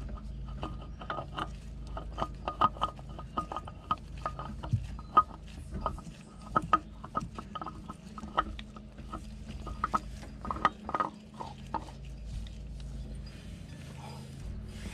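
New spin-on oil filter being turned on by hand on a MerCruiser 3.0 engine: quick, irregular metallic clicks and ticks as the gloved fingers work the filter can around, stopping about twelve seconds in. A low steady hum runs underneath.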